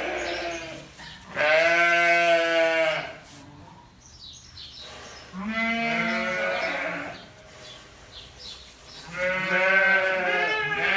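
Sheep bleating: a few long, wavering bleats a couple of seconds apart, one tailing off just after the start and others about a second and a half in, around the middle and near the end.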